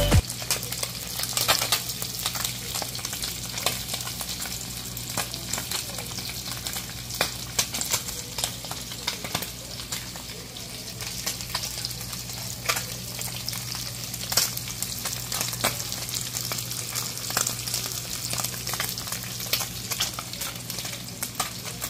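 Whole pond smelt frying in hot oil in a pan: a steady sizzle with frequent sharp crackles and pops, over a low steady hum.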